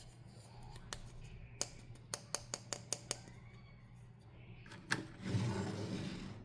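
Hands handling toy packaging during an unboxing: a series of sharp plastic clicks and taps, quickest in the middle, then a louder rustle near the end.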